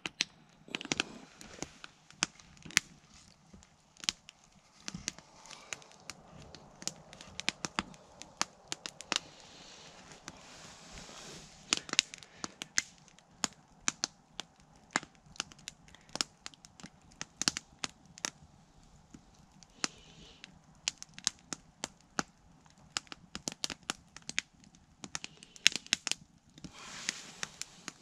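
Open wood fire crackling, with irregular sharp snaps and pops several times a second.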